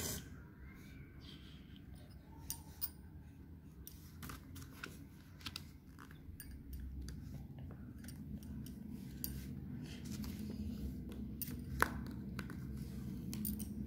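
A red wax crayon scratching back and forth on craft paper as a drawing is shaded in. It makes a dry scraping full of short irregular ticks.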